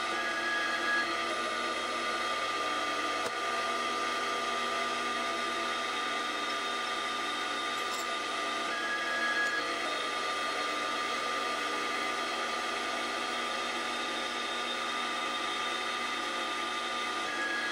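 Small benchtop metal lathe running and turning down a thin steel motor shaft, a steady whine with no let-up.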